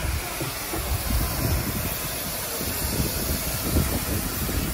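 Steady hiss of steam escaping from steam traction engines and a steam roller, with low, irregular rumbling underneath.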